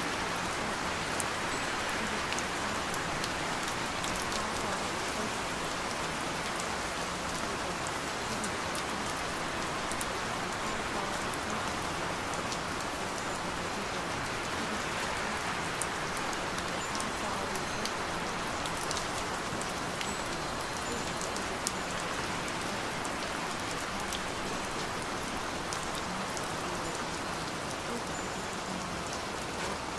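Steady rain: an even hiss with scattered small drop ticks throughout.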